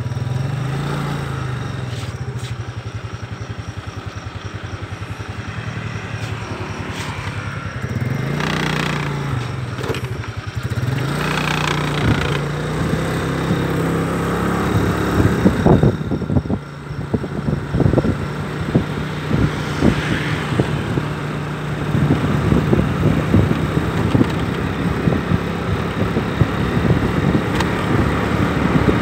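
Motorbike engine running while under way, its pitch dipping and picking up again a few times in the first half as the throttle eases and reopens. Wind buffets the microphone, more roughly in the second half.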